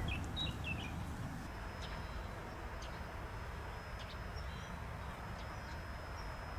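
Quiet outdoor ambience: a low steady background rumble with a thin, steady high whine over it, and a few short bird chirps in the first second.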